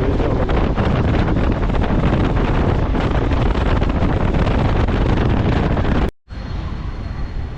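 Heavy wind rumble on the microphone mixed with vehicle noise. It cuts off abruptly about six seconds in, and a quieter background follows.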